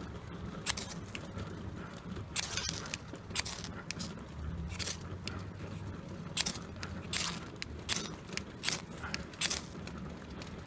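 Ferrocerium rod scraped hard with a steel striker: a dozen or so sharp rasping strikes at irregular intervals, throwing sparks onto shredded fatwood-rope tinder that has not yet caught. A low steady bubbling from a coffee percolator runs underneath.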